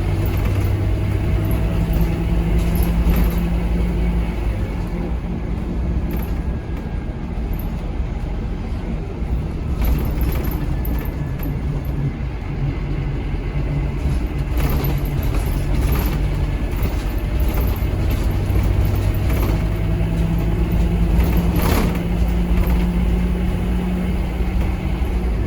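Scania K230UB Omnilink bus engine and ZF Ecomat automatic gearbox heard on board, the engine note stepping up and down as the bus pulls and changes gear, with a faint gearbox whine and a few clicks and rattles.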